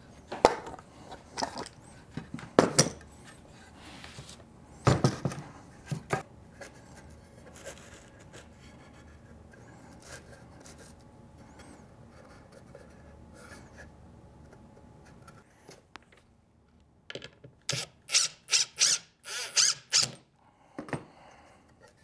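Cedar boards and a bar clamp handled on a wooden workbench as a birdhouse box is fitted together: several sharp wooden knocks in the first few seconds, then quiet rubbing, and near the end a quick series of short scraping strokes.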